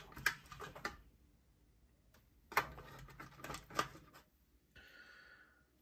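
Faint, scattered clicks and taps of a small screwdriver and a knife being handled on a work mat, with a soft hiss near the end.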